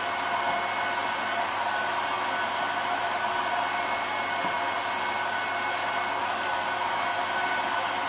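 Goblin Solo 302A cylinder vacuum cleaner running steadily: a rush of air through the bare hose end with a thin motor whine over it, as the hose is worked over carpet.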